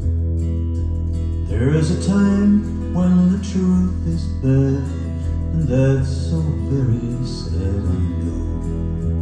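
Recorded acoustic folk music: acoustic guitar over a steady bass. A melodic line comes in about a second and a half in and carries on until near the end.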